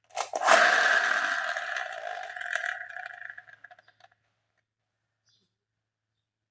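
Electric toy gun's sound effect played through its small speaker: a click, then a loud electronic blast of hiss over two steady tones that fades away over about three and a half seconds.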